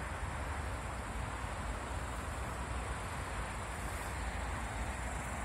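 Steady outdoor background: a low, even rumble under a continuous high, thin chirring of insects in summer grass.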